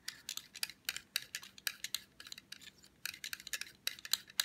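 Paasche TN-1 airbrush needle being spun by hand in the second slot of a SharpenAir sharpener, its bent tip grinding against the 1200-grit stones inside. The sound is a rapid, irregular run of light, high ticks and scrapes.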